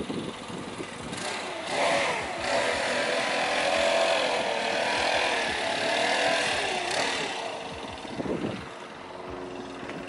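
Gas backpack leaf blower running hard, its engine pitch wavering up and down, louder from about a second in and dropping back near the end.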